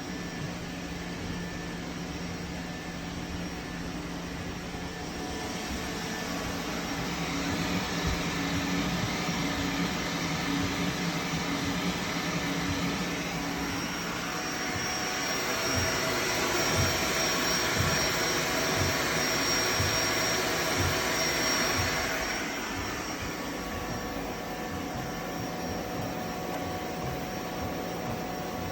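3D printer running a print: cooling fans whirring steadily under the changing whine of its stepper motors. The sound builds through the middle, peaking for several seconds with a high-pitched whine, then settles back to a lower hum.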